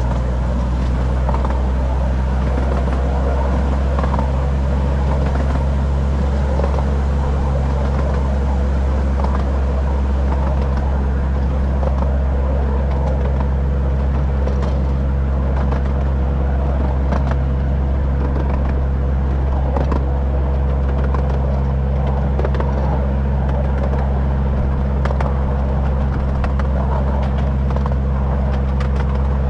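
A small engine running at a steady speed with an even low hum and a thin steady whine above it, faint clicks scattered over it.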